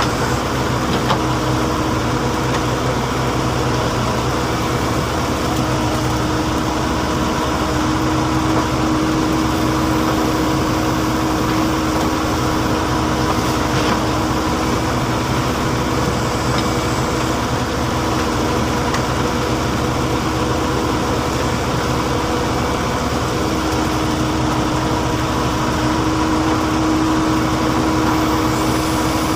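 Heavy diesel engine running steadily at a constant speed, with a steady hum and no revving.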